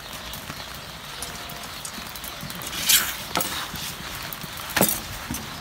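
Steady rain pattering down, with three sharp knocks partway through, the loudest about three seconds in and near the end.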